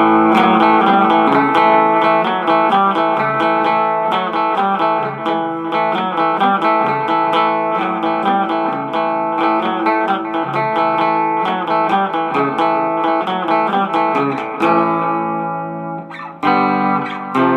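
Squier Bullet Telecaster electric guitar on its middle pickup, played through a Roland Cube amp with delay: a stream of quickly picked notes and chords. About fifteen seconds in, a chord is left to ring and fade, and picking starts again near the end.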